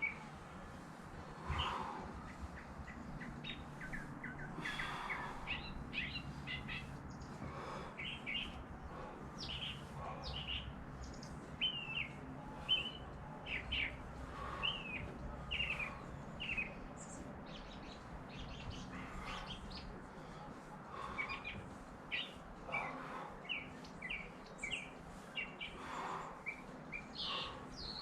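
Birds chirping and calling over and over, short quick chirps scattered through the whole stretch, over a faint steady low hum.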